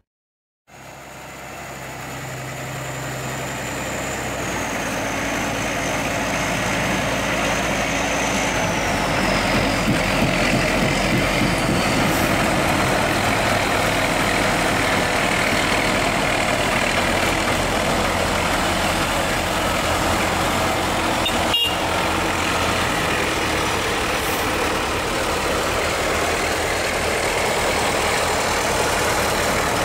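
Heavy diesel engines of Rába-Steiger articulated tractors running, growing louder over the first several seconds and then steady. A high whine falls in pitch within the first dozen seconds.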